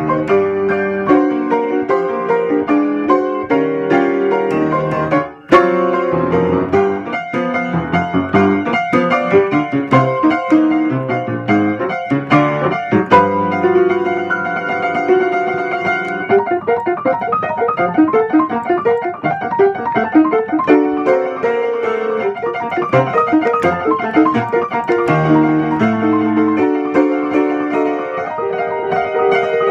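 Piano played in a funky, rhythmic style, with chords over a moving bass line: an arrangement of the Keio Line railway crossing bell. There is one short break in the playing about five seconds in.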